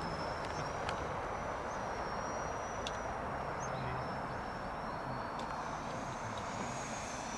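A 64 mm electric ducted-fan RC model jet in flight: a steady rushing hiss with a thin high whine that wavers slightly in pitch.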